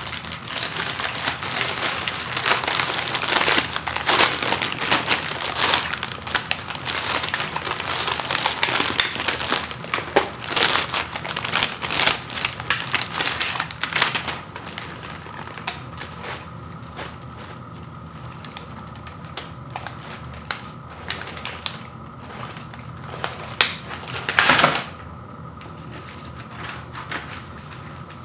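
Thin plastic cookie wrapper crinkling and rustling as a plastic tray of sandwich cookies is worked out of it, for about the first half. After that it is much quieter, with a few light clicks and one short loud crinkle a few seconds before the end.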